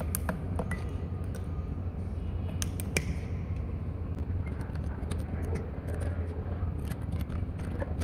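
Pliers gripping, twisting and prying broken commutator bars and winding lead ends off a DC generator armature: irregular sharp metal clicks and clinks, thickest near the end, over a steady low hum.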